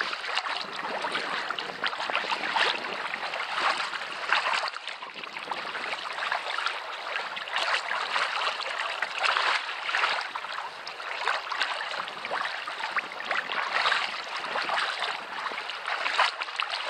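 Sea kayak being paddled through choppy water: the paddle blades splash in and out and water slaps and washes against the hull, swelling in uneven surges every second or two.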